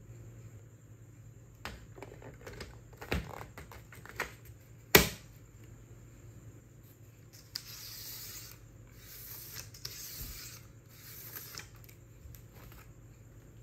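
Plastic clicks and knocks as a black toner cartridge is fitted into a Brother DR-240CL drum unit, with one sharp, loud click about five seconds in as it snaps into place. This is followed by three short stretches of dry rubbing.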